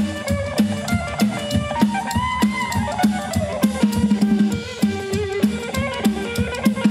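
Live rock and roll band playing: an electric guitar lead with bent notes about two to three seconds in, over a steady drum-kit beat.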